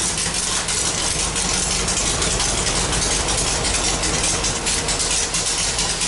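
Air-cooled Volkswagen flat-four engine in a dune buggy idling steadily through chrome header exhaust pipes.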